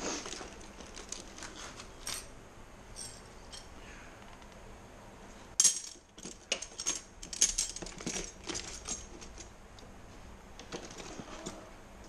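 Steel wrenches and sockets clinking against each other as they are handled and set into a plastic toolbox tray: scattered clinks, with a sharp clack just past halfway and a busy run of clinks after it.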